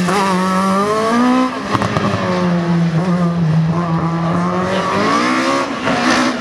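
Audi A4 race car's engine revving hard as it accelerates and lifts through a cone slalom. Its pitch rises and falls several times, with a drop about a second and a half in and a long climb from about four seconds.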